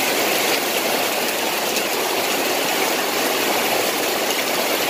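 Heavy rain falling in a steady downpour, a dense, even hiss with no let-up.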